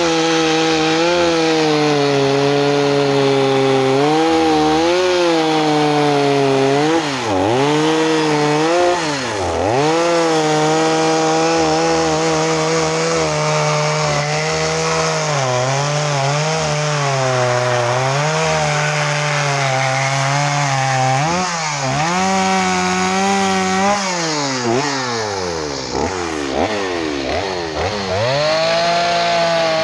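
Two-stroke chainsaw cutting into a log, running at high revs with its pitch sagging and recovering over and over as the chain bites and the throttle is eased. Several quick, deep drops and climbs in engine speed come in two stretches, a few seconds in and again towards the end.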